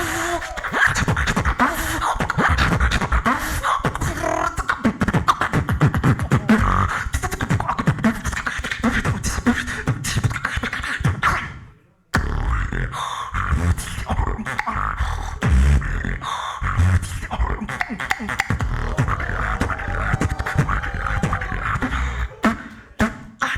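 Beatboxing: fast vocal percussion of sharp clicks and snares over low bass beats, with bending hummed tones. It breaks off for a moment about halfway, then carries on.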